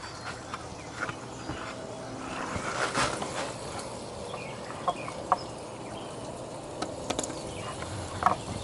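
Light clicks and taps of small parts being handled as an LED bulb is fitted into a boat's cabin light fixture, over a low steady background.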